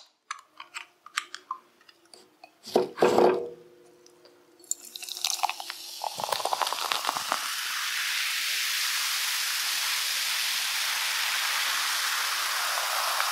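A can of cola is opened with a few clicks and a short sharp burst about three seconds in. From about six seconds on it is poured into a mug as a steady, fizzing pour.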